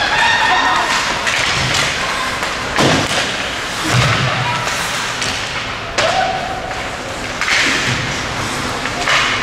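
Four dull thuds a second or more apart, from hockey play hitting the rink boards, over the steady hubbub of an ice rink with voices calling out.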